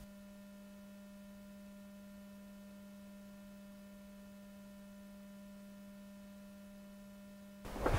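Steady low electrical hum with faint higher overtones, unchanging. Near the end a sudden, louder burst of noise cuts in.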